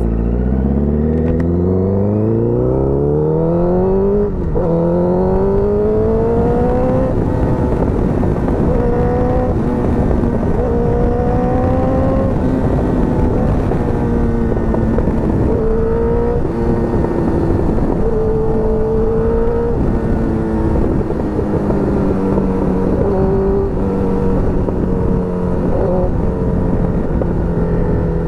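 Motorcycle engine pulling away and accelerating, its pitch climbing steadily and then dropping at an upshift about four and a half seconds in, with further rises and upshifts after that. It then settles to cruising with small throttle changes, over steady wind noise.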